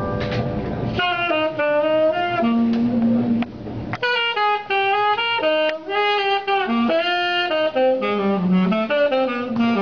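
Live small-group jazz: a tenor saxophone comes in about a second in with a flowing melodic line over the band, after a moment of sustained piano chords.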